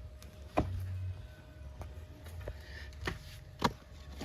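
Two sharp knocks, one about half a second in and one near the end, with a few fainter ticks between them, over a low steady rumble.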